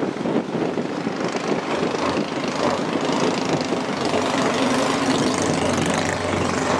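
Boat engine running steadily, a dense rapid chugging; a steadier low hum comes in about four seconds in.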